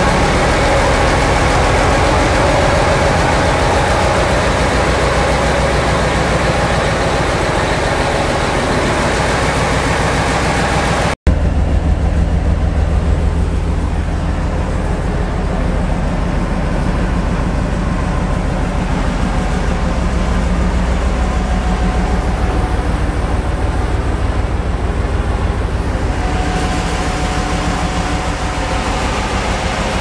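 The 14D40 two-stroke V12 diesel of a 2M62 locomotive running steadily. For the first eleven seconds it is heard close up inside the engine room. After an abrupt cut it is heard from outside the locomotive, duller, with the low drone dominant. Near the end the brighter engine-room sound comes back.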